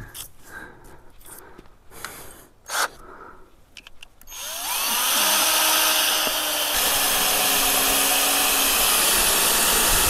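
A few light clicks, then about four seconds in an electric power tool's motor starts. Its whine rises as it spins up, and it runs at steady speed with a loud hiss.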